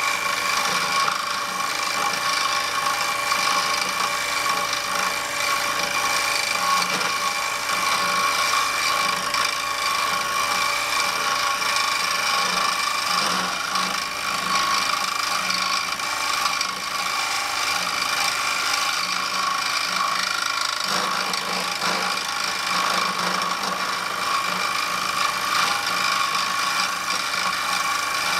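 Wood lathe running steadily while a skew chisel shears a spinning wooden pen blank, a continuous scraping hiss of cutting over the lathe's steady hum.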